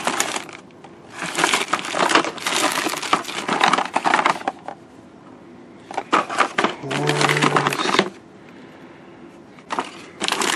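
Hands rummaging through a plastic storage bin of power cords and plastic-bagged replacement cords: bags crinkling and rustling, cords and plugs shifting against each other, in several bursts with short pauses.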